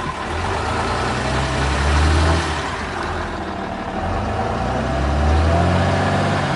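Ram 2500's 6.7-litre Cummins inline-six turbo-diesel, heard from inside the cab, revved twice with the truck standing still: the engine note swells about two seconds in, eases off, then swells again near the end. It is loud.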